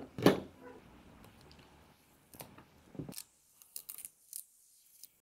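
A crosshatch cutter, a 10-tooth blade, scraping across a plastic glasses arm in a crosshatch adhesion test: a series of short, faint scratching strokes, the first the loudest.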